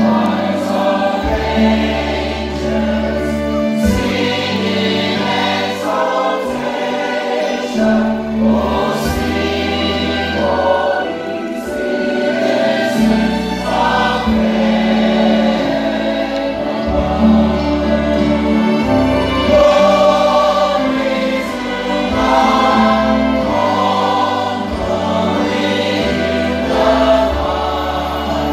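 A church choir singing a gospel song with instrumental accompaniment and held bass notes.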